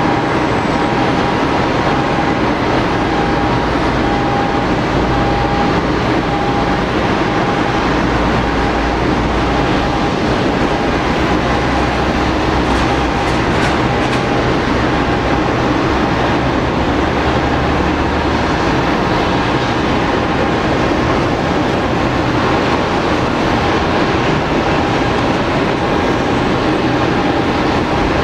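Boeing 787-8 jet engines running at idle during pushback: a steady, even roar with a faint high whine held on one pitch.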